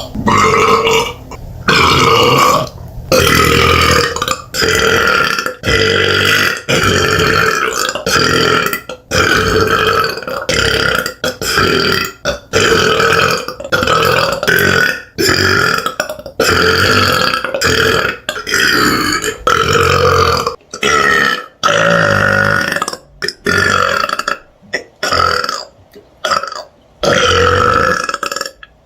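A woman's deep, loud burps, one after another in quick succession: a long run of them, each about a second long, with brief gaps between.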